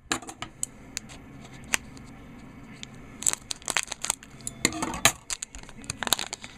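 A trading card pack's wrapper being torn and crinkled open by hand, in irregular sharp crackles with a louder cluster about five seconds in; the cards are hard to get out of the package.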